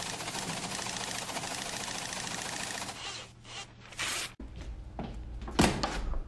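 Teleprinter clattering rapidly as it prints out a message, stopping after about three seconds. After that comes a low steady hum and one sharp knock about five and a half seconds in.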